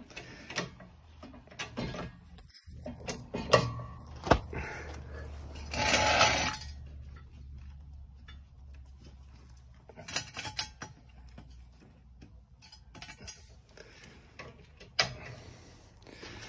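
Scattered metallic clinks and knocks from a car jack and steel axle stand being worked under a car. The sharpest knock comes about three and a half seconds in, a short rushing noise about six seconds in, and a cluster of clinks around ten seconds.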